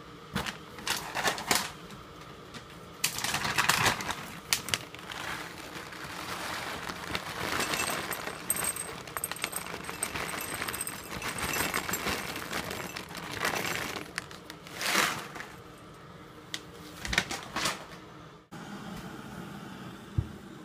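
Dry dog kibble poured from a bag into a ceramic bowl: hard pellets clatter and rattle against the bowl in several uneven pours, some louder than others.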